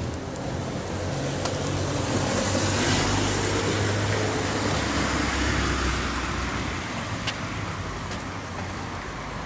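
Street traffic: a motor vehicle passes close by, its engine and tyre noise swelling to a peak about three seconds in and then fading. A few light clicks sound over it.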